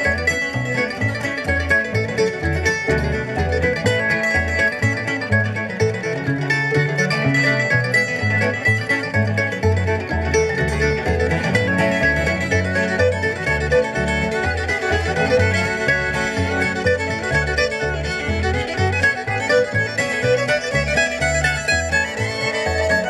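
Bluegrass string band playing a brisk instrumental reel: fiddle, mandolin and acoustic guitar over an upright bass plucking a steady beat.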